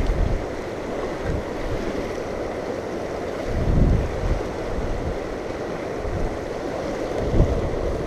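Wind buffeting the microphone in gusts, with low rumbling surges about four seconds in and near the end, over the steady rush of the river's current.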